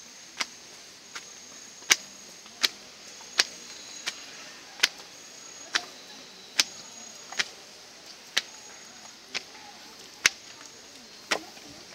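Footsteps on stone steps: sharp, regular slaps at a walking pace, about one every three-quarters of a second, over a thin, steady high-pitched tone.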